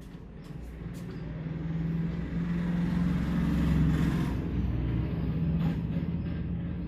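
A motor vehicle's engine going past, a low hum that grows louder to a peak about four seconds in and then eases off. A few light clicks come in the first second.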